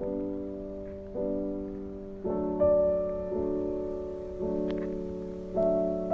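Background music of slow, gentle piano chords, each struck and left to fade before the next about once a second.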